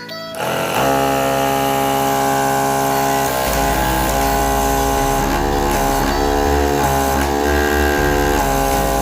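Background music: sustained guitar chords over a bass line, the notes changing every second or so.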